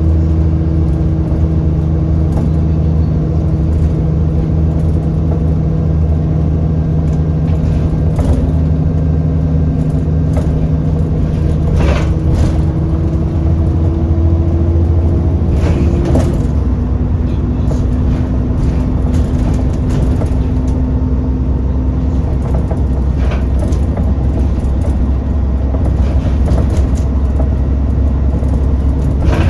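Alexander Dennis Trident double-decker bus running with a steady engine drone; the engine note drops in pitch about halfway through, and a few sharp knocks come through over it.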